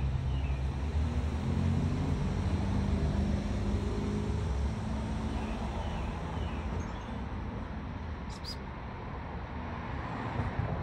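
Motor vehicle engine running, a low hum that is strongest for the first few seconds and then eases off into steady outdoor background noise.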